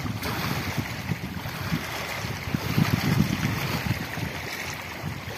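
Wind buffeting the microphone over small waves lapping on a pebble shore, with gusts of low rumble about halfway through.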